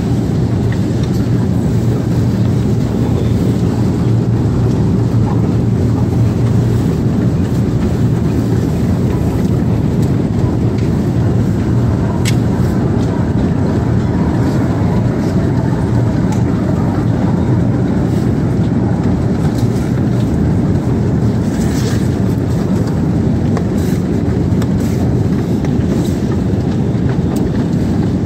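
Escalator running: a steady low mechanical rumble and hum, with occasional faint clicks.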